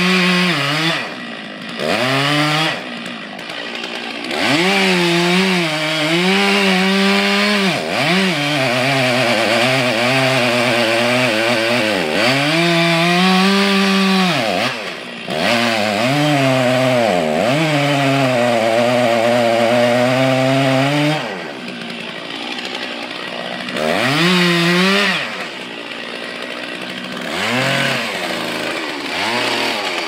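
Large Stihl two-stroke chainsaw cutting into a tree trunk at full throttle while the felling notch is cut, the engine dropping back toward idle and revving up again several times between cuts.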